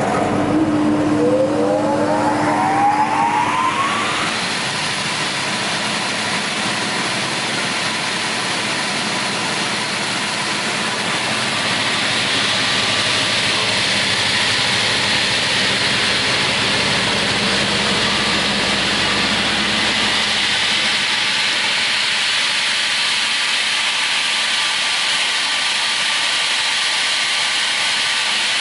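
Raimann KR 230D crawler multi-rip saw starting up: its motors spin up with a rising whine over the first few seconds, then the machine runs empty with a steady whirring hiss of the spinning saw blades.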